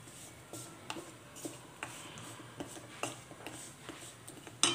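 Black spatula scraping and tapping against the kadhai while stirring and pressing pieces of jaggery melting in ghee: irregular light clicks and scrapes, with a sharper knock near the end.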